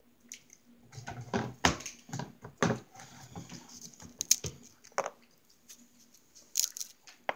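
A plastic water bottle being picked up and handled, with scattered knocks and a few sharp clicks as its cap is opened, then drinking from it near the end.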